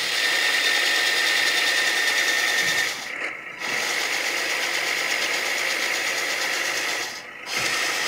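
Drive motor and gear train of a 1/14 LESU hydraulic RC road roller whining steadily as the raised wheels spin. It drops off briefly about three seconds in and again near the end, and runs at a different pitch between the stops, as forward drive runs faster than reverse.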